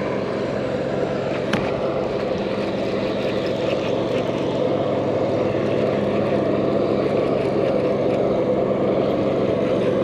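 A steady motor drone: an unbroken, even hum with a noisy wash over it, not rising or falling.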